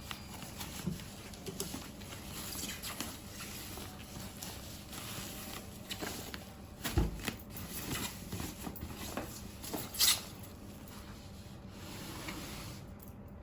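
Unboxing packaging and a coffee machine being handled: scattered small rustles, scrapes and light taps. There is a dull thump about seven seconds in and a short crinkling rustle about ten seconds in.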